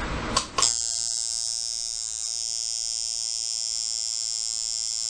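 A coil tattoo machine starts about half a second in, after a couple of clicks, and then buzzes steadily at about 113 cycles per second as its armature bar makes and breaks contact with the contact screw. The contact screw has just been turned down, which sets the machine at about a 49% duty cycle.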